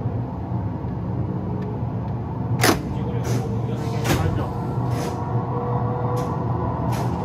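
Train-driving simulator playing the running sound of an electric train: a steady motor and wheel hum while the train picks up speed, broken by several sharp clacks, the loudest about two and a half seconds in.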